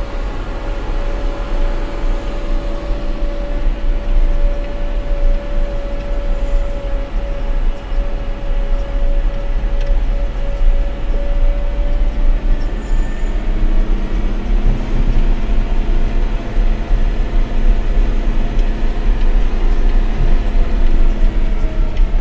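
Motor grader's diesel engine running while the machine drives along, heard from inside the cab. A steady whine sits over the engine's rumble until about twelve seconds in; then the engine note shifts and gets slightly louder.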